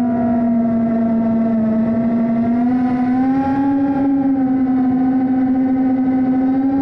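Motors and propellers of a sub-250 g GEPRC Smart 35 HD FPV quadcopter, a steady pitched whine that drifts with the throttle and rises a little about halfway through.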